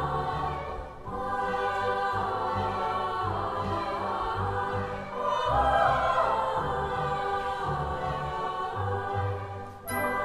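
Choral music: voices singing held notes over a low bass line.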